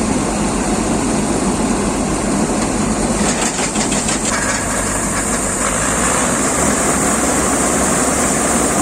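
Rice harvester machine running: its engine and machinery give a loud, steady noise, with a short rapid clatter about three seconds in.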